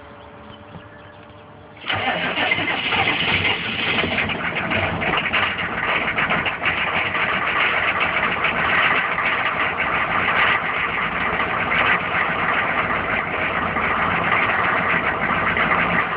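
1995 Chevy 2500's 6.5-litre turbo diesel V8 cold-starting on glow plugs alone, with no block heater: it fires suddenly about two seconds in and keeps running steadily.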